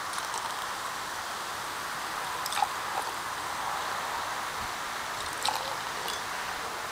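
Champagne being poured from the bottle into a row of glass flutes, a steady fizzing pour, with two light clicks about a third of the way in and again near the end.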